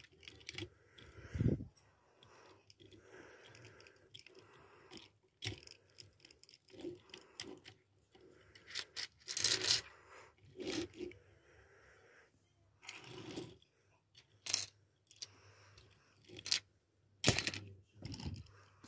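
Tomica UD Trucks Quon trailer dump toy being handled on a tabletop: irregular clicks, clinks and light knocks as its dump bed is tilted and small parts are moved, with a few sharper knocks.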